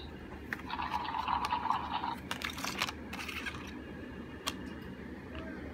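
Stiff activity card being slid out of a stack and placed on a plastic toy: scratchy rustling and sliding with several clicks for a few seconds, then a single sharp click.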